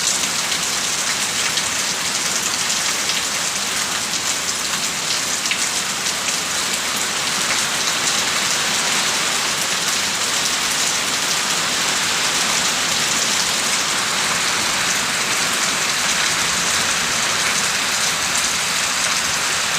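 Heavy rain pouring down, a steady dense hiss of rain striking surfaces.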